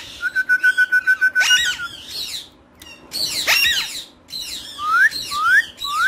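Alexandrine parakeets calling: harsh squawks throughout, a fast steady trill lasting about two seconds at the start, and three short rising whistles near the end.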